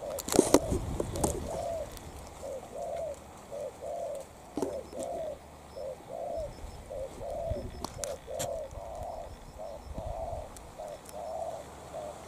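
Spotted dove cooing: a steady run of short coos, each rising and falling, about two a second. A few sharp knocks and rustles come near the start and twice more later.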